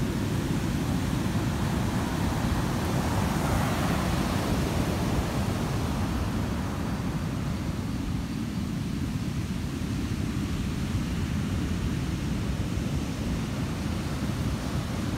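Steady wind rumble on the microphone over the wash of surf breaking on a beach, with the surf swelling louder about four seconds in.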